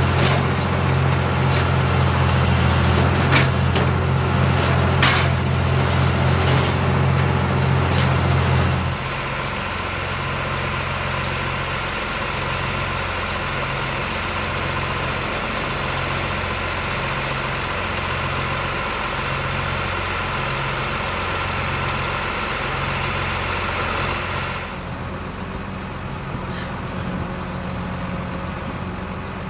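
Diesel engines of cotton-harvesting machinery, a John Deere 9996 cotton picker and a tractor-driven module builder, running steadily, with a few sharp knocks in the first several seconds. About nine seconds in, the sound shifts to a lower engine drone that pulses about once a second, and it eases off a little near the end.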